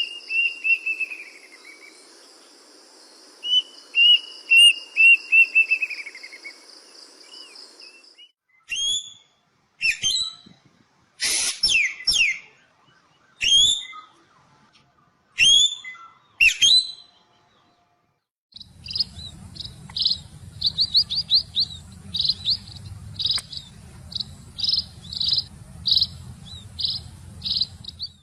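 Songbirds calling: three different birds in turn. First comes a run of quick falling chirps, heard twice over a steady high buzz. Then a bird gives single sharp, sweeping calls every second or two. About two-thirds of the way through, another bird starts a rapid series of short, repeated notes over a low hum.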